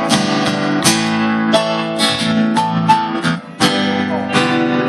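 Live band music led by a strummed guitar, chords struck in a steady rhythm, with a brief drop in level about three and a half seconds in.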